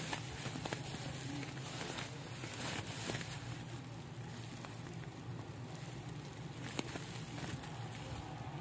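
Plastic bubble wrap crinkling and crackling as it is handled and pulled off a beaded bracelet, with scattered small clicks and one sharper click near the end.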